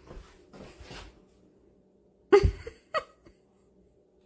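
Irish wolfhound huffing two breathy puffs, then letting out a short, loud vocal grumble about two and a half seconds in and a briefer, higher one half a second later, fussing over a squash he wants.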